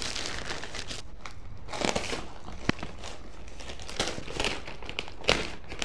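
Plastic courier mailer bag crinkling and rustling as it is handled and cut open with a small folding blade, with scattered crackles and one sharp click a little under three seconds in.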